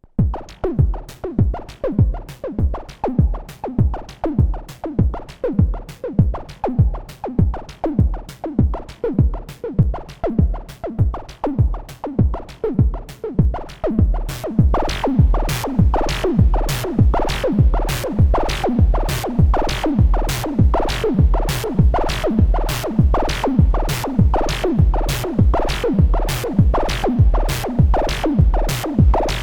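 Moog DFAM analog percussion synthesizer playing a looping sequenced beat of electronic drum hits, each dropping quickly in pitch. About 14 seconds in the beat gets louder and brighter, with hissy noise on every hit.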